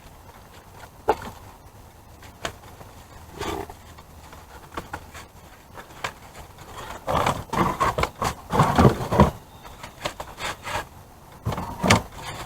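Party decorations and their packaging being handled and set into a wooden box: scattered knocks and clicks, with a louder spell of rustling and handling noise about seven to nine seconds in.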